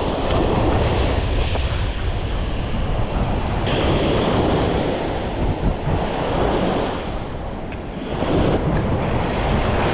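Small surf breaking and washing up onto a sandy beach, swelling and easing with each wave, with wind buffeting the microphone.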